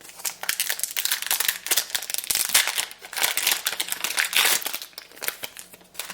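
A trading-card booster pack wrapper being torn open and crinkled, a dense crackling that goes on for most of the few seconds and is loudest in the middle.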